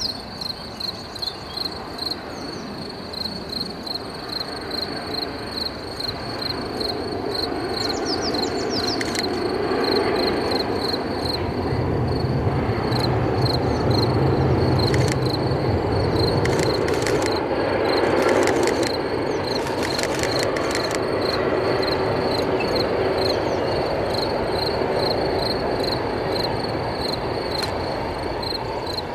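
Electric-hauled sleeper train rolling across a long viaduct with a steel truss span: a rumble of wheels and coaches that builds from about six seconds in and stays loud through the middle, with runs of sharp clicks from the wheels. Under it runs the steady rhythmic chirping of a cricket.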